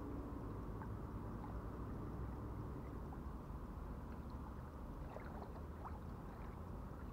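Low, steady rumble of wind and small waves lapping at the lake shore, with a few faint clicks about five to six seconds in.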